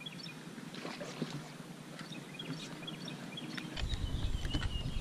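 Ambience aboard a small fishing boat: scattered faint clicks and knocks over a steady hiss. Nearly four seconds in, a low rumble sets in and the sound grows louder.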